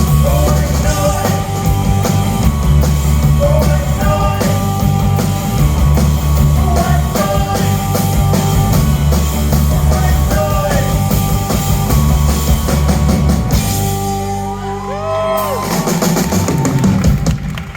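Live rock band playing, with drum kit and bass driving a steady pulse and a singing voice over it. About fourteen seconds in, the cymbals drop out briefly before the full band comes back in.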